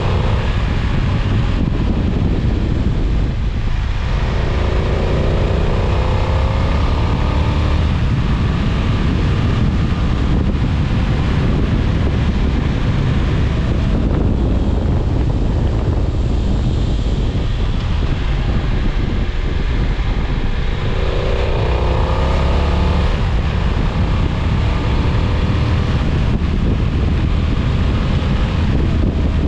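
Riding at speed on a wet road: heavy wind rumble on the microphone with a steady hiss of tyres on wet tarmac, under the BMW F900XR's 895 cc parallel-twin engine. The engine's pitch rises twice as the bike accelerates, about four seconds in and again a little past twenty seconds.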